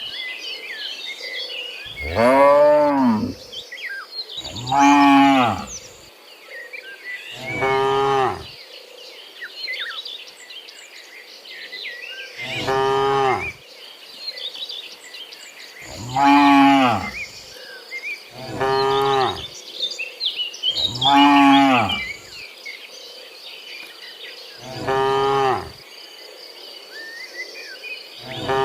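Cattle mooing again and again, about eight long moos a few seconds apart, over a steady high insect hum.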